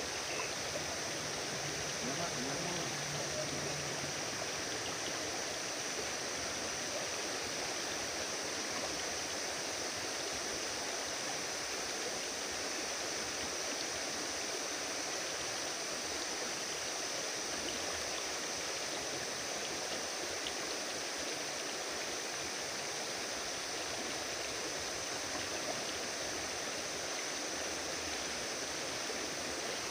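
Steady rush of a waterfall and its stream, an even, unbroken water noise.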